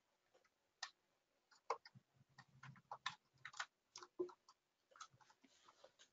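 Near silence, with faint, irregular short clicks and ticks scattered throughout.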